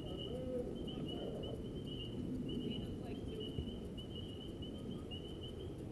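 Thin, high chirping in short repeated runs that stops just before the end, over a steady low rumble of outdoor background noise.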